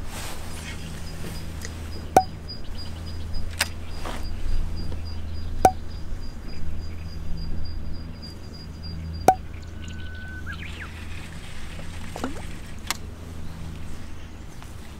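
Outdoor ambience on a small fishing boat on a lake: a steady low hum with three sharp clicks a few seconds apart, and a thin high whine for several seconds in the first half.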